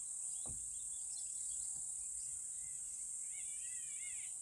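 Steady high-pitched insect drone with scattered bird chirps. Near the end comes a short run of wavering, warbling bird calls, and there is a brief low falling thud about half a second in.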